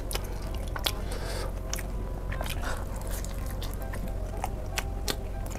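Close-up eating sounds of sauce-glazed fried chicken: biting and chewing, with many short, sharp crackles of the crisp coating scattered through.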